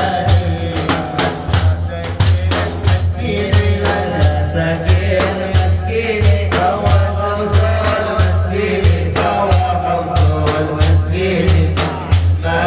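Madih, an Arabic Sufi praise song: a praise singer's voice over frame drums and tambourine keeping a steady beat.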